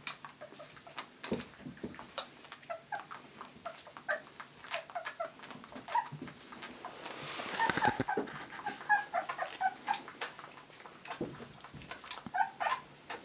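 Newborn puppies suckling from a baby bottle: wet clicking and smacking of sucking, with short high squeaks and whimpers between. A brief rustling noise swells up about seven seconds in.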